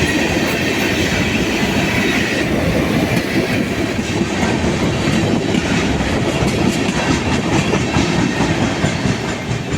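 Freight train cars rolling past with a steady rumble and clatter of wheels on rail, and a faint high wheel squeal in the first couple of seconds.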